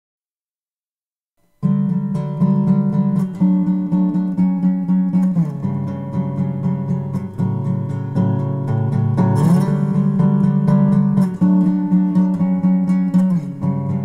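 A song's guitar intro: after about a second and a half of silence, plucked guitar music starts abruptly and carries on, with a couple of sliding notes.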